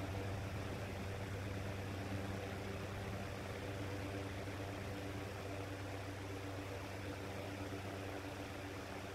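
Shinic 9-inch electric fan's motor humming steadily: a low electrical hum with its overtones over a light hiss, easing off slightly in loudness. The motor has no start capacitor, so it is slow to come up to speed when cold.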